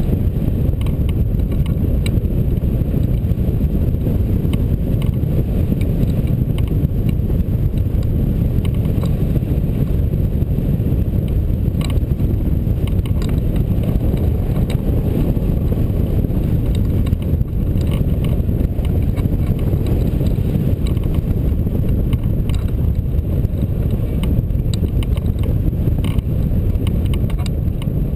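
Airflow rushing over a hang glider's wing-mounted camera in flight: a steady, dense low rumble of wind on the microphone, with a few faint ticks.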